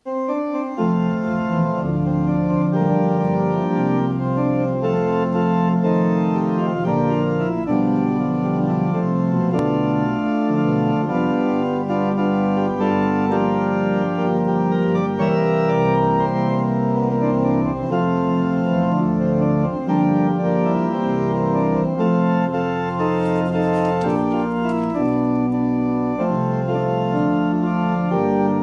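Organ music playing sustained chords that change every second or so.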